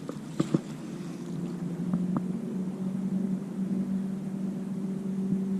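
A steady low mechanical hum, holding one pitch, with a brief click about half a second in and another about two seconds in.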